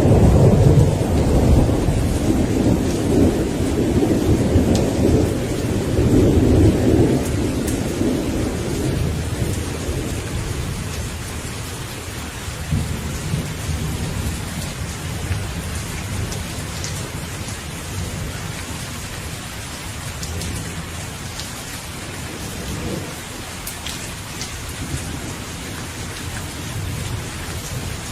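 Steady rain falling, with a long low roll of thunder over the first several seconds that fades away, leaving the even hiss of the rain with a few sharper drop taps.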